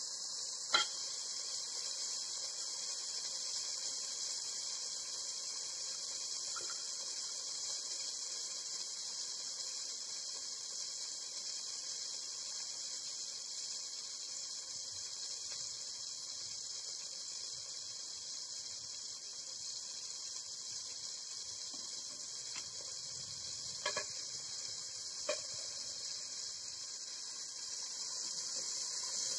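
Meat sizzling steadily in an aluminium pot on a gas-cylinder burner, a high hiss, growing louder in the last second as the meat is stirred. A few short sharp clicks, one about a second in and two close together near the end.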